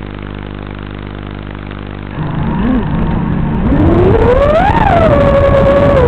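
Small FPV quadcopter's brushless motors and propellers: a steady buzz for about two seconds, then the motors throttle up with a rising whine that peaks and eases back to a steady hum as the quad lifts off.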